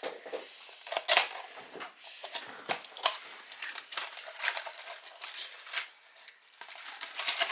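A small gift package being handled and opened by hand: irregular clicks, taps and short rustles.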